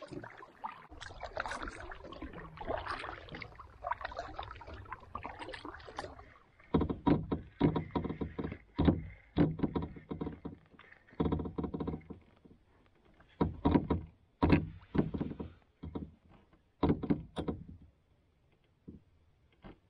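Spinning fishing reel being cranked in a run of short, loud whirring bursts, the reel retrieving line on a hooked fish. Before that, a few seconds of softer, steady noise.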